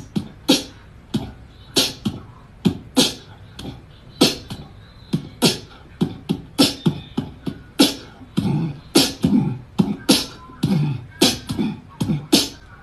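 Beatboxing: a steady rhythm of sharp vocal kick and snare hits, about two a second, with some deeper hummed bass notes a little past the middle.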